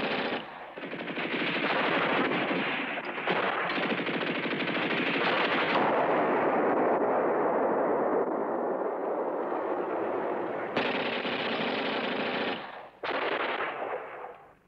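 Sustained rapid machine-gun fire mixed with rifle shots, a dense continuous rattle of gunfire. It breaks briefly about half a second in and again near the end, then dies away.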